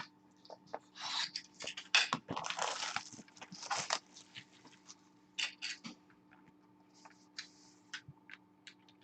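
Plastic shrink wrap crinkling and tearing for about three seconds as a sealed box of trading cards is opened, then scattered light clicks and rustles of the cardboard box being handled.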